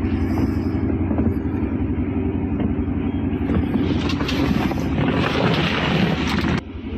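Low, steady drone of the Scania K410 coach's engine idling, heard from inside the cabin. A rustling noise swells from about four seconds in and then stops abruptly near the end.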